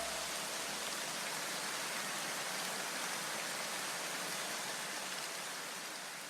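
Steady even hiss, like white noise, slowly fading near the end.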